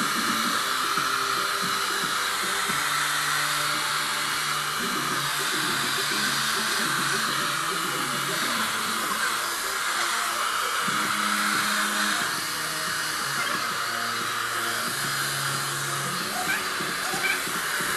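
Hair dryer blowing steadily, with music playing underneath.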